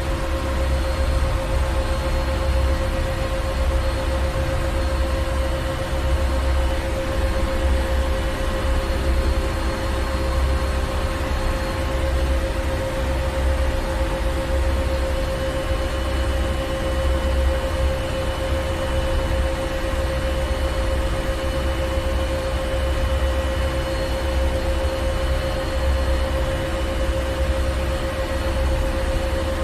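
Ship's engine room machinery running steadily: a deep rumble that swells and dips irregularly, a steady hum over it, and an even hiss of machinery noise.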